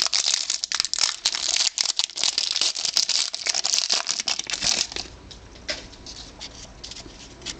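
Trading card pack wrapper crinkling and tearing open in a dense run of crackles for about five seconds, then quieter scattered rustles and clicks as the cards are handled.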